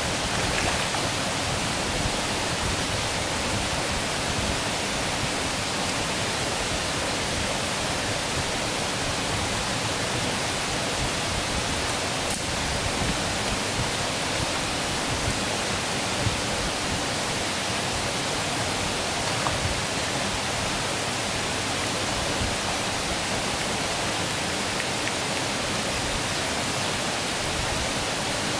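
Shallow stream flowing over rocks and stones: a steady, even wash of running water.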